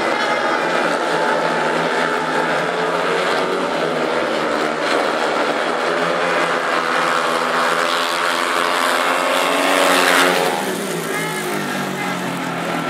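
Speedway motorcycles' single-cylinder engines racing round the track, several engine notes rising and falling together as the riders accelerate and back off. About ten seconds in the engine note climbs to its loudest and highest, then drops away.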